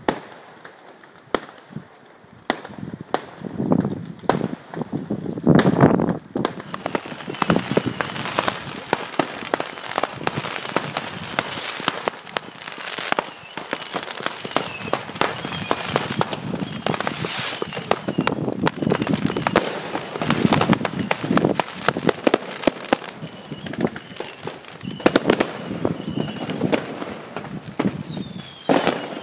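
Fireworks and firecrackers going off: a few separate bangs at first, then from about six seconds in a dense, unbroken crackle of many bangs, with short whistles here and there.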